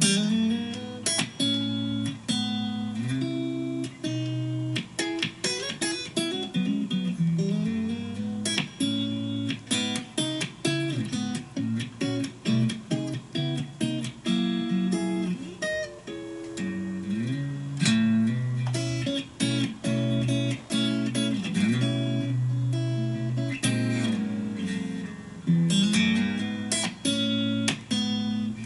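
Fender Stratocaster electric guitar playing clean, funky rhythm: many short, choppy chord stabs that are cut off sharply, mixed with sliding single-note lines.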